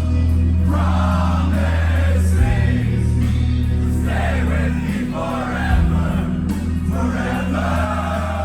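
Live metalcore band playing loud, with long held low bass notes under phrases of sung vocals, and a crowd's voices mixed in.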